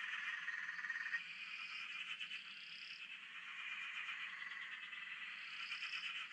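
Night chorus of frogs calling together, a dense, steady, finely pulsing trill.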